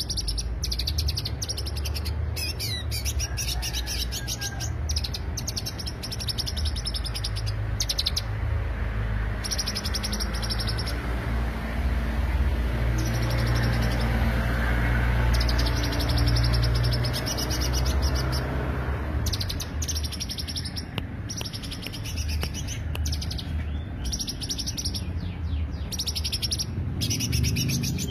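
Cucak hijau (green leafbird) song used as a lure: rapid trains of high, fast chirps in bursts, with a few short pauses about a third and half of the way in. A steady low rumble runs underneath.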